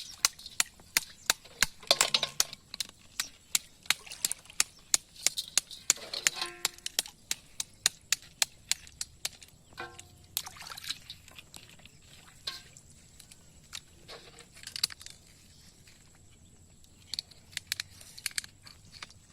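Many irregular sharp clicks and taps, thick for the first several seconds and then coming only now and then.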